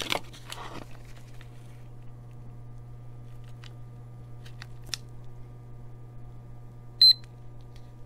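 Cable tester beeping once, short and high-pitched, about seven seconds in, as its function button is held to switch it on. A few faint clicks of handling and button presses come before it, over a steady low hum.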